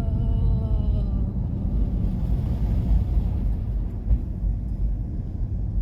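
Steady low rumble of a car on the road, with the tail of background music fading out in the first second or so.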